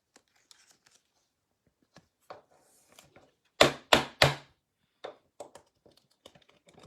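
Trading cards and packs being handled on a table: soft scattered clicks and rustles, with three sharp knocks in quick succession about halfway through.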